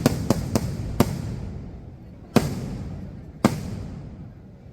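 Fireworks exploding: a quick run of four sharp bangs in the first second, then two more single bangs about a second apart. Each bang is followed by a rumbling echo that dies away.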